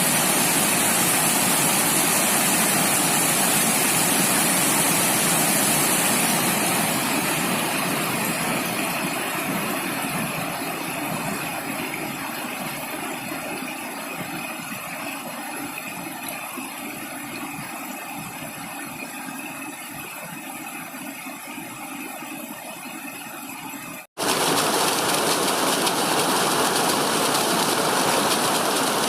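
Steady rushing water that fades down gradually over most of the stretch. About 24 seconds in it cuts off abruptly and a different, louder rush of water takes over.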